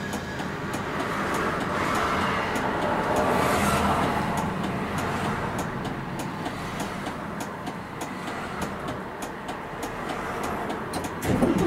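Steady engine and running noise of a city route bus heard from inside, with scattered faint clicks. A louder noise starts near the end.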